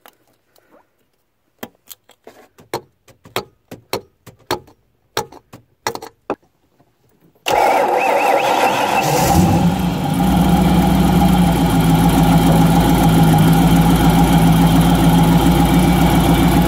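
About fifteen sharp metal taps as a freeze plug is knocked back into the side of a boat engine's block. About seven and a half seconds in, the inboard engine is suddenly heard running and settles into a steady idle with the plug refitted.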